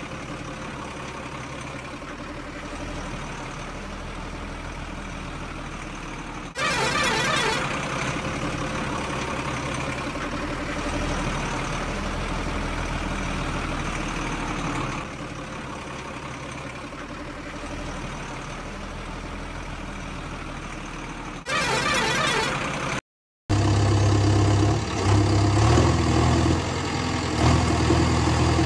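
Toy construction vehicles moving on dirt: a steady background hiss, two short loud bursts about seven and twenty-two seconds in, and after a brief cut a louder, steady motor-like hum whose level shifts.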